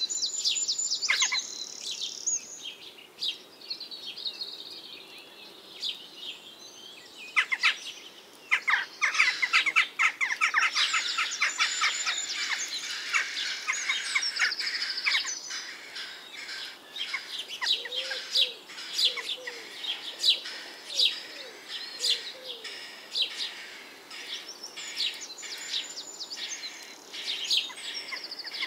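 A chorus of songbirds: many overlapping high chirps and fast trills, with a lower, softer call repeated several times about two-thirds of the way through.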